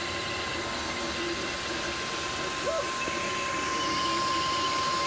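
Cetus3D desktop 3D printer running a print: the print-head cooling fan gives a steady hiss, while the stepper motors whine in short tones that keep shifting in pitch as the head moves.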